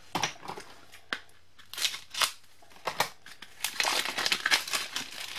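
Clear plastic wrapping on a stack of postcards crinkling in short, irregular rustles as the pack is lifted out of a cardboard box and handled. The rustling is busiest about two seconds in and again around four seconds in.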